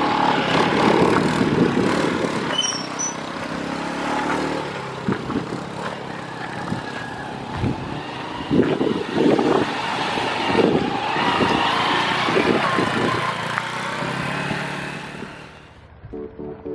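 Motorcycle under way, its engine and a rushing wind noise on the microphone, with irregular bumps from about eight to thirteen seconds in. It fades out near the end as music starts.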